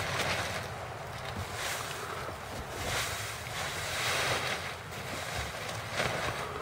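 Wind gusting on the microphone: a rushing noise that swells and fades every second or so over a low rumble.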